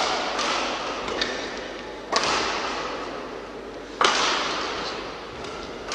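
Badminton rackets striking a shuttlecock in a rally: three sharp smacks about two seconds apart, each ringing on in the reverberant sports hall.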